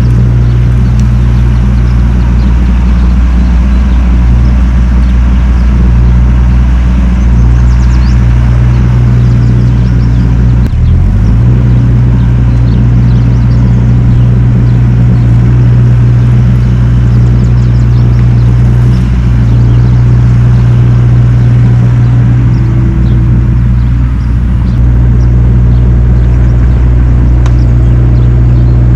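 Deere excavator's diesel engine running steadily under load, a low hum that dips briefly in pitch about eleven seconds in.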